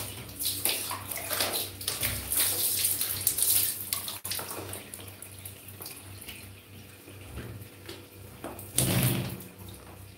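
Water poured from a plastic bath scoop splashing over a wet baby monkey and the bench it sits on. The splashing is heaviest for the first four seconds, eases off, and a second splash comes near the end.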